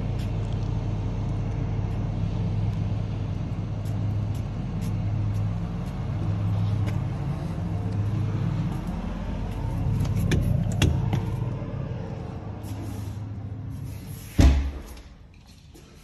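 A steady low mechanical hum, then near the end a single heavy thump of the front door shutting, after which the hum drops away and it goes much quieter.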